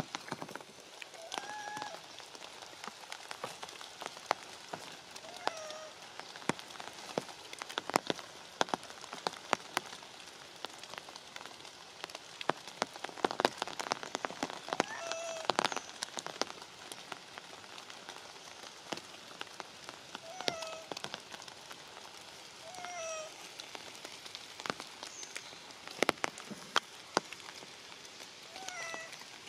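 Steady rain with sharp drips hitting leaves and bark, and a young macaque giving about six short cries every few seconds, each dropping slightly in pitch.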